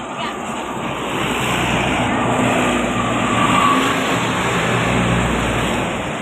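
A bus passing close by: its engine rumble and tyre noise build up, peak a little past the middle and ease off near the end.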